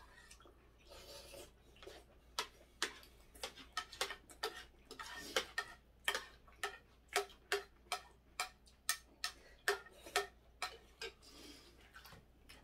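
Metal spoon clinking and scraping against a ceramic plate as food is scooped up, a quick run of sharp clinks at about two a second that stops shortly before the end.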